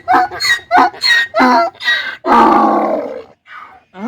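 Donkey braying: a quick run of short honking calls, then a long, loud bray about two seconds in, with the next bray starting at the very end.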